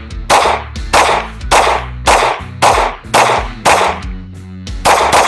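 Beretta APX A1 full-size semi-automatic pistol firing a string of about eight shots, roughly two a second, with a short pause before the last one.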